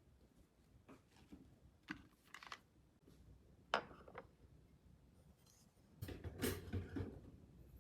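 A few light clicks and taps of small objects being handled, the sharpest about four seconds in, then a second or so of denser clattering and handling near the end.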